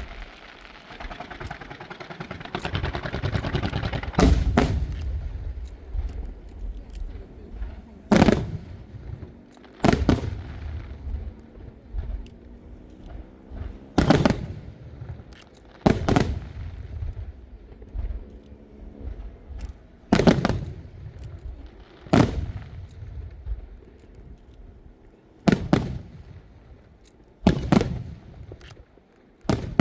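Aerial firework shells bursting, about ten loud booms roughly every two seconds, each followed by a rolling echo. A dense crackling hiss fills the first few seconds before the booms begin.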